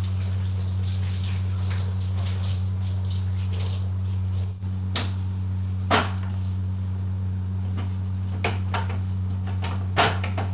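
A steady low hum throughout, with a few short sharp knocks and clatters in the second half as a gas stove and kitchen counter are wiped down.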